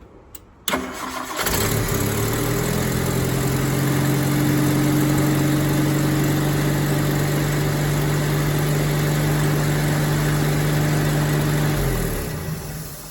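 Rover P4 80's 2.3-litre four-cylinder petrol engine cranked on the starter, catching within about a second, then idling steadily before being switched off near the end and running down. It is a test run after a new ignition lead has been fitted, checking for a misfire.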